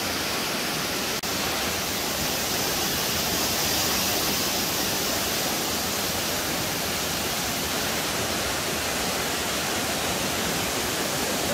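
Shallow whitewater rushing steadily down a long, smooth natural rock slide.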